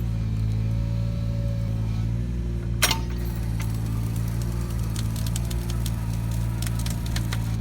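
Takeuchi TB219 mini excavator's diesel engine running steadily while its cone splitter works a log, with sharp cracks of the wood splitting: one loud crack about three seconds in and a run of smaller cracks near the end.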